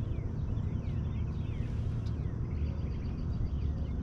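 Several birds chirping and singing, short quick calls over a steady low rumble.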